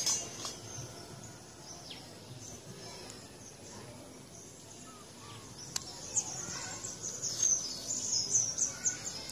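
Small birds chirping over a steady outdoor hiss, the chirps growing louder and coming in quick runs over the last few seconds.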